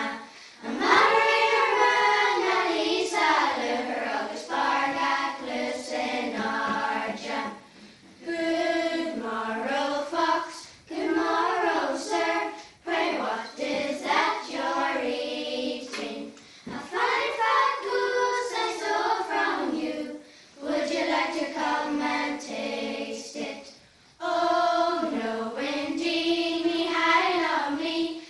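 A group of young schoolchildren singing together as a choir, in phrases broken by short pauses for breath every few seconds.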